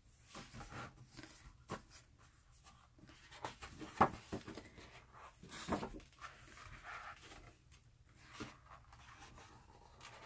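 Pages of a hardcover book turned and handled by hand: paper rustling with soft flaps and taps, the sharpest about four seconds in.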